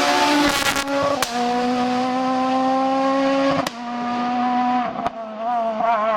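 Rally car engine pulling hard up through the gears. Within each gear the pitch climbs slowly, then drops with a sharp crack at each upshift: about a second in, at about three and a half seconds, and at five seconds.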